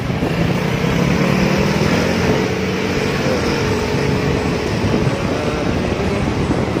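Small motorcycle engine running at a steady low speed while moving slowly, with wind rumble on the microphone.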